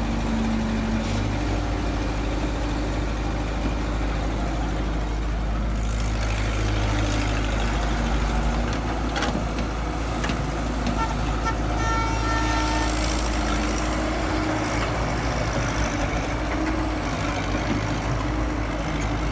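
Excavator's heavy diesel engine running steadily with a deep hum, with a few short high tones sounding around twelve seconds in.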